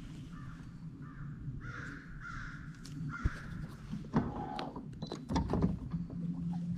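A crow cawing, a quick run of about half a dozen harsh caws in the first half, followed by a few sharp clicks and knocks. A low steady hum starts near the end.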